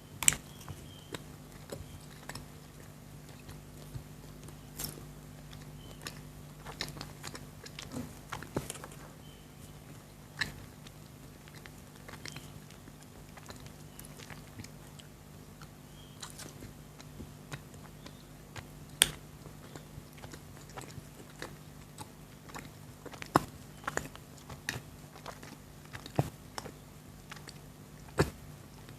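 Close-up mouth sounds of someone biting and chewing chocolates: irregular crunches and wet mouth clicks at uneven intervals. A faint steady low hum runs underneath.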